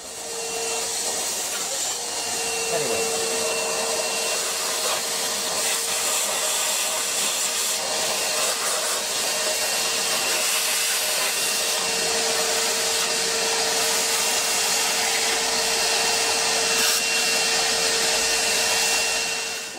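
Vacuum cleaner running steadily with a high, even whine, its nozzle sucking up metal swarf from drilling and tapping.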